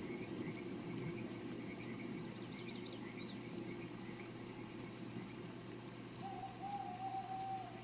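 Steady rain hiss with small birds chirping softly throughout and a short burst of quick higher chirps about three seconds in. About six seconds in, one bird gives a longer, even call lasting about a second and a half.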